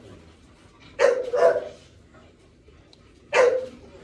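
A dog barking: two quick barks about a second in, then one more near the end.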